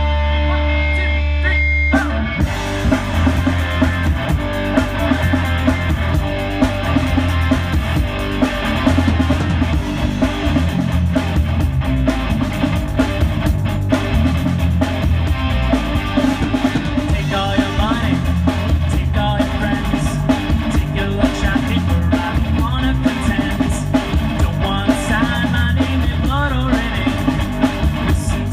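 Live rock band playing: electric guitar alone at first, then the drum kit, bass and second guitar come in about two seconds in and the full band plays on.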